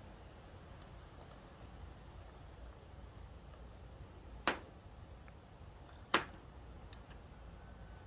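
Small metal clicks of lock-picking tools being handled at a padlock: faint scattered ticks, then two sharp clicks about a second and a half apart midway through.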